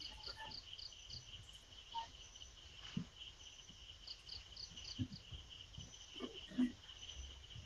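Crickets chirping: a steady high trill with runs of quicker, higher chirps. A few faint soft thumps come in the middle of it.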